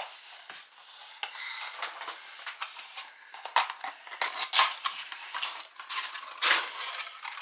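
Advent calendar compartment being handled and opened by hand: irregular crinkling, rustling and small clicks of the packaging, busiest in the middle.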